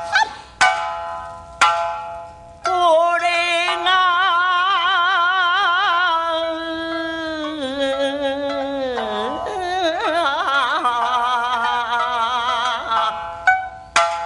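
Rōkyoku sung passage: shamisen plucks a few sharp notes, then the singer holds one long drawn-out melisma with heavy vibrato for about ten seconds, sliding lower in pitch around the middle. Shamisen plucking comes back near the end.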